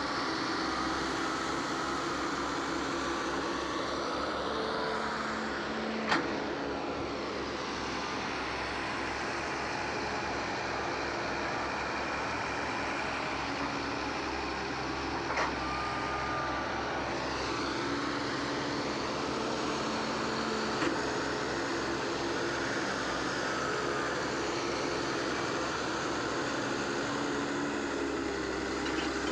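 Diesel engines of heavy earthmoving machines running steadily at a hill-cutting site, with a sharp knock about six seconds in and a couple of fainter knocks later.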